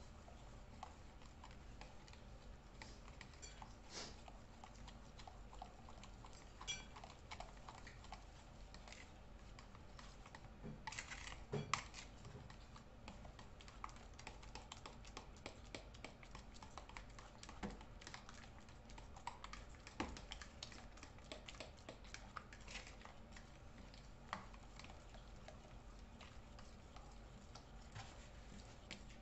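Fork stirring banana bread batter in a mixing bowl: faint, irregular clicks and scrapes of the fork against the bowl, with a louder cluster about eleven seconds in.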